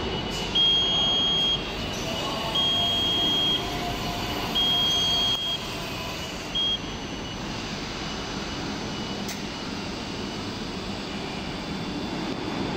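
Warning beeper of an autonomous mobile robot moving off with a pallet: a high beep about a second long, repeated every two seconds, four times with the last one short, stopping about 6.7 s in. A steady hum of warehouse machinery runs underneath.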